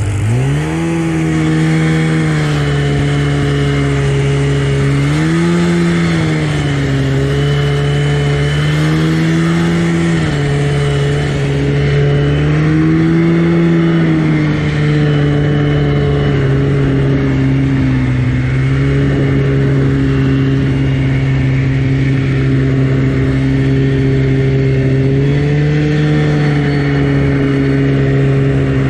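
A 1983 Yamaha SS 440 snowmobile's two-stroke engine running under throttle while riding. Its pitch rises and eases back several times with throttle changes, then falls as the sled slows near the end.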